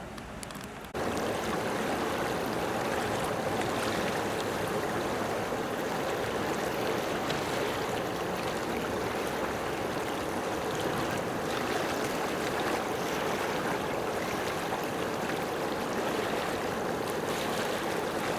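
A steady rushing noise like running water that starts abruptly about a second in and then holds even.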